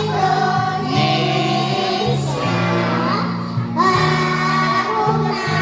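A kindergarten children's choir singing along with a musical accompaniment.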